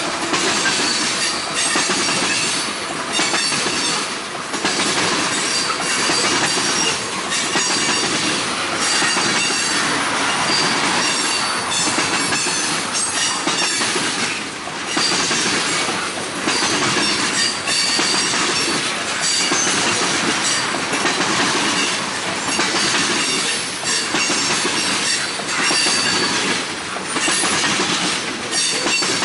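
Train cars rolling past close by, with repeated clacks of wheels over rail joints and an on-and-off high wheel squeal.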